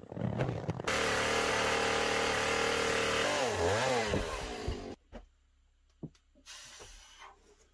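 Chainsaw running at a steady high pitch, then dipping and climbing in pitch as it is worked through the edge of a window opening in a spruce log wall. It stops about five seconds in, followed by a few faint knocks.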